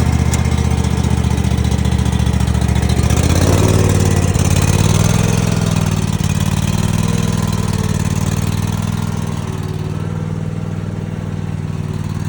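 John Deere X584 lawn tractor's engine running just after starting. It picks up speed about three seconds in, then runs steadily.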